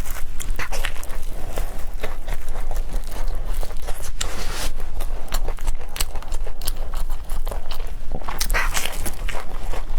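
Close-miked eating sounds of someone chewing tteokbokki, the chewy Korean rice cakes, with irregular clicks and mouth noises.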